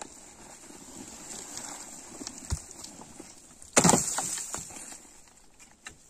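Stones and earth being worked loose from an old dry-stone wall: scraping and small knocks, a sharper knock a little past halfway, then one loud crash of rubble about four seconds in.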